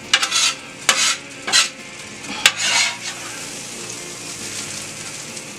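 Metal spatula scraping across a steel flat-top griddle, about four quick scoops in the first three seconds as grilled peppers and onions are lifted off, over the steady sizzle of food frying on the griddle.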